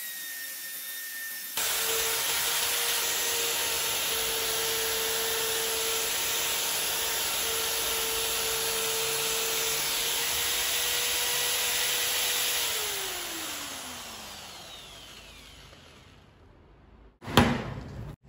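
Electric drill spinning a steel pin in its chuck while a strip of abrasive cloth polishes it: a steady motor tone under a loud sanding hiss that starts about a second and a half in. After about twelve seconds the motor winds down, its pitch falling as the sound fades, and a sharp knock comes near the end.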